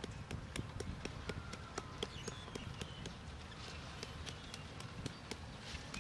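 Kitchen knife tapping into a hard green mango held in the hand, chopping a series of shallow cuts into the flesh to shred it: a run of sharp clicks, about four a second.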